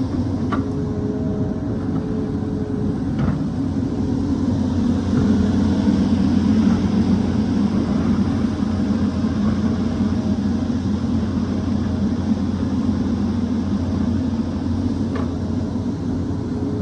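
Hydraulic excavator's diesel engine running steadily, rising under load for a few seconds near the middle. A few sharp knocks sound over it, twice early on and once near the end.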